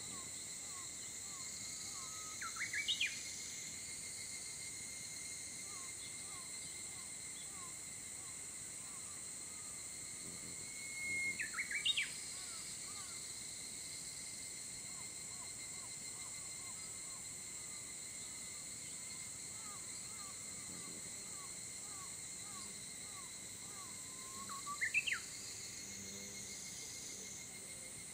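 Early-morning woodland sounds: a bird sings a short song three times, each a held note followed by quick rising notes, over a steady high insect drone and a long run of small faint chirps.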